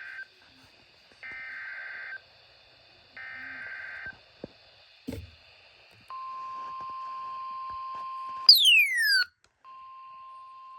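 NOAA Weather Radio alert: three short buzzy bursts of SAME header data, a second apart, then the steady 1050 Hz warning alarm tone starting about 6 s in. A loud falling electronic sweep with overtones cuts the tone at about 8.5 s, and the steady tone comes back near the end.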